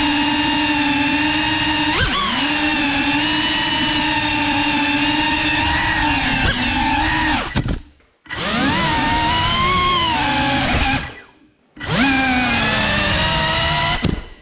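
GEPRC FPV quadcopter's brushless motors whining steadily, the pitch shifting with throttle. The motors stop twice, about eight seconds in and again near eleven seconds, each time spooling back up with a rising whine.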